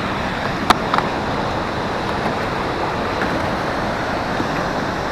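Steady rushing noise of wind and river water around a drifting fishing boat, with two sharp clicks about a second in.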